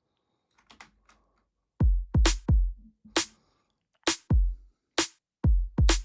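Programmed break-beat drum pattern playing back: deep kick drum samples that drop in pitch, with a bright snare hit about once a second. It starts about two seconds in, after a few faint clicks.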